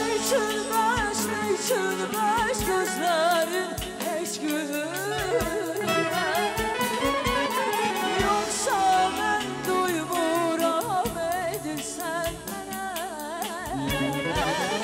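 A woman singing an Azerbaijani song with heavily ornamented, trilling runs, backed by a live band of clarinet, electric guitar, keyboard and drums keeping a steady beat.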